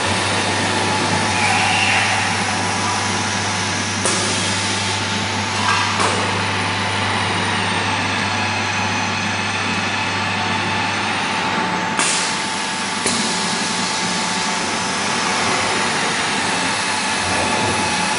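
Four-axis CNC milling machine running: a steady mechanical hiss with a constant tone and a low hum that fades about two-thirds of the way through, broken by a few sharp clicks.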